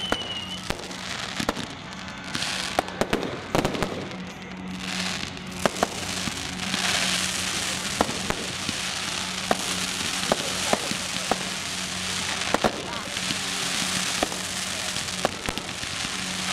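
Fireworks display: a rapid, irregular string of sharp bangs and pops over a continuous hissing crackle from ground fountains and comets. A whistle falls in pitch at the very start, and the hiss swells twice, about seven and fourteen seconds in.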